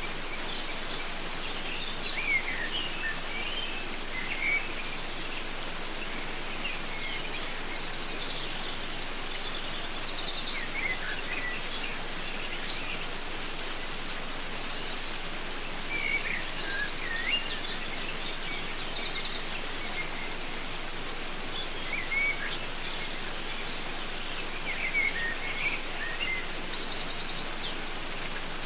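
Waterfall rushing steadily, with several birds calling over it: short chirps and whistled notes mixed with quick buzzy trills that come in clusters every few seconds.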